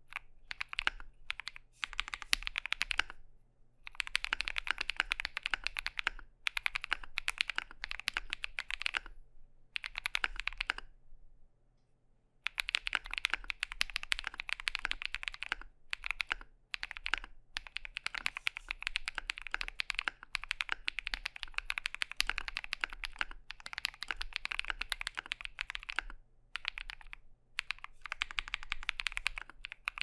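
Typing on a Monsgeek M2 aluminium mechanical keyboard fitted with Akko V3 Cream Blue tactile switches: fast runs of keystrokes broken by short pauses, the longest about eleven seconds in.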